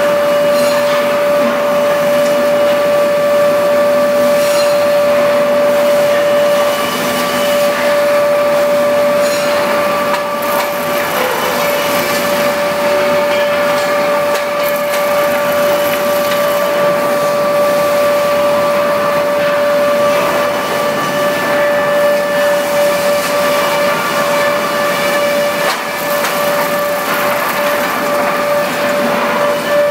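REX wood planing machine running with a constant high whine over a rushing noise that rises and falls.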